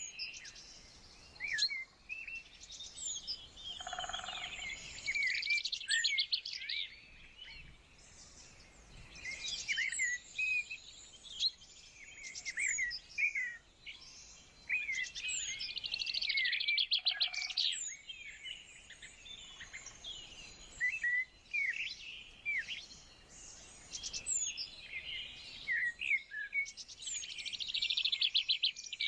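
Several songbirds singing at once: short high chirps and whistled notes, with bursts of rapid trills every few seconds and, now and then, a brief lower call.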